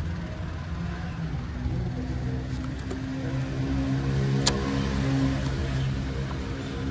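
A steady low engine-like hum that swells in the middle, with one sharp click about four and a half seconds in.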